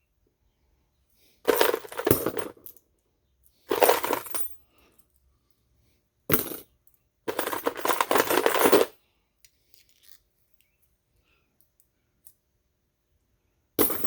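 Small metal sewing machine presser feet clinking and clattering against each other as they are sorted and dropped into a box, in four bursts of rattling over the first nine seconds, then only a few faint ticks.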